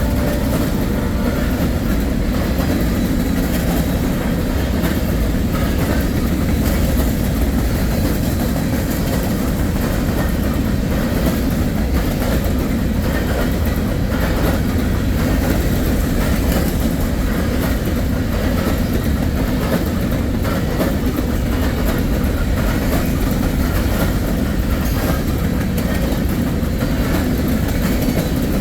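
Empty grain hopper cars of a freight train rolling past. It is a steady, loud rumble, with the wheels clicking irregularly over the rail joints.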